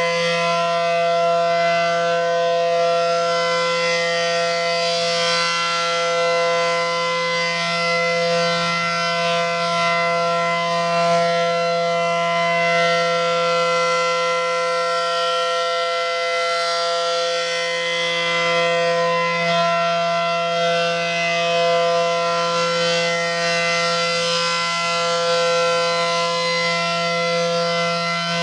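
Refurbished ACA Allertor rotating warning siren sounding a loud, steady tone at constant pitch, swelling and easing slightly in loudness every few seconds as its head turns, with strong echoes off the nearby factory building.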